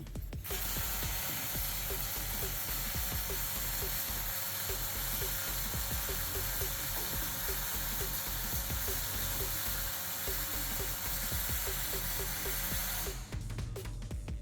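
Robotic arc welder running a bead weld: a steady frying crackle of the arc that strikes about half a second in and cuts off suddenly a little over a second before the end.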